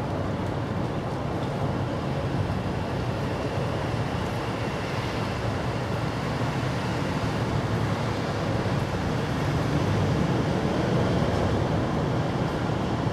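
Steady low rumble of outdoor background noise, like distant road traffic, with no distinct events.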